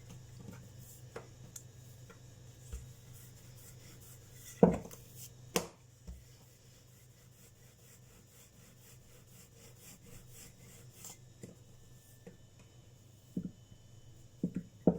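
Hands working small pieces of stiff chebakia dough on a work surface: soft rubbing and handling, with scattered light knocks and two sharp ones about five seconds in.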